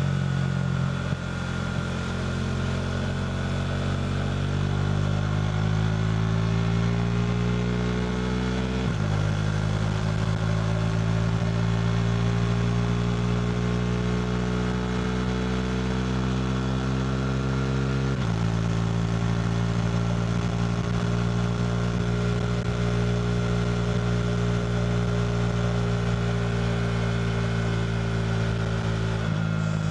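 KTM RC 390's single-cylinder engine through a Two Brothers slip-on exhaust, under way. It climbs slowly in pitch, drops sharply on upshifts about nine and eighteen seconds in, then holds a steady cruise that eases off slightly toward the end.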